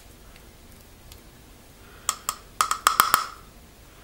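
A paintbrush being tapped to flick paint splatters onto a book cover: a quick run of about seven or eight sharp knocks, each with a short ring, starting about two seconds in and lasting about a second.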